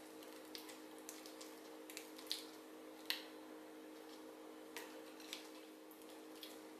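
Faint wet squishing of fish paste being squeezed through a gloved hand, with a metal spoon clicking against the ceramic bowls several times. The sharpest click comes about three seconds in, over a steady low hum.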